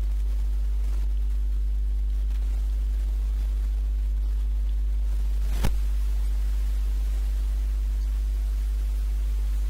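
Steady low electrical hum in the recording, with a single sharp click about halfway through.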